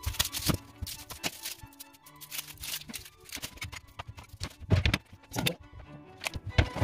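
Background music, over a series of sharp knocks and clicks from a knife and garlic cloves on a plastic cutting board; the loudest knocks come a little past the middle and near the end.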